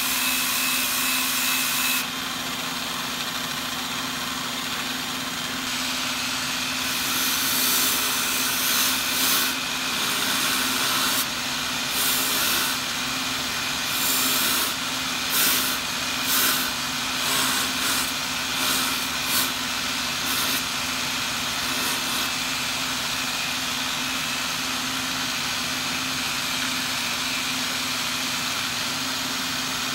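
Angle grinder fitted with a sanding disc running steadily, with a small wooden piece pressed against it again and again: a steady motor hum under a rasping hiss that swells with each pass, the passes most frequent through the middle.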